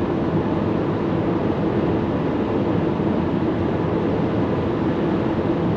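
Steady road and wind noise inside the cabin of a Maxus e-Deliver 7 electric van at a motorway speed of 120 km/h, at about 73–75 dB on a sound meter.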